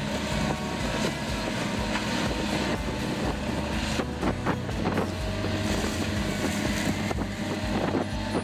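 Large log wood chipper running, its engine droning steadily, with scattered sharp knocks and cracks as wood goes through from about halfway on.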